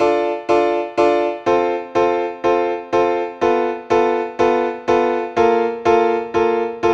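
Background music: a keyboard, like an electric piano, playing repeated chords on a steady beat, about two strikes a second.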